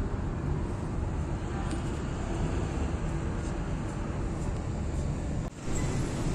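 Steady low background rumble with no distinct events, briefly dropping out about five and a half seconds in.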